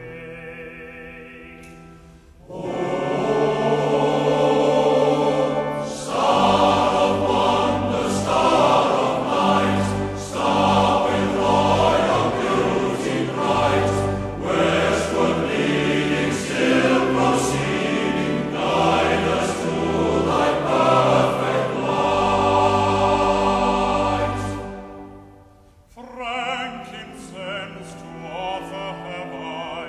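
Choral music with orchestral accompaniment, held chords that swell loud about two and a half seconds in and fall back quieter near the end.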